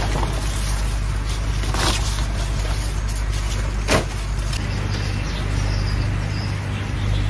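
Taro plants' stalks and leaves rustling as they are pulled and handled, with two brief sharp sounds about two and four seconds in, over a steady low hum.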